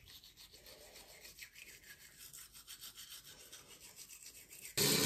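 Manual toothbrush scrubbing teeth, a fast rhythmic brushing hiss. Near the end a sudden, much louder rush of noise cuts in.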